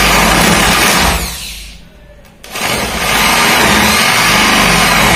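Electric hand drill with a boring bit cutting a cup hole for a concealed hinge in plywood. It runs loudly, winds down with a falling whine about a second in, stops briefly, then speeds back up after a click and keeps drilling steadily.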